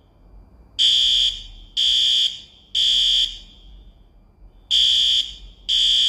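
Fire alarm sounding the three-beep evacuation pattern: three loud, high-pitched half-second beeps a second apart, a pause of about a second and a half, then the next group starts with two beeps. It is a false alarm; there is no fire.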